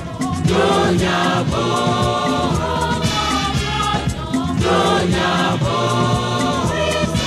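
Choir singing a Ghanaian gospel song over a band with a steady drum beat and bass.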